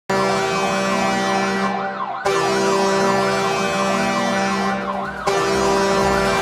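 Hockey goal horn sounding three long blasts with brief breaks between them, with a siren warbling rapidly over the blasts.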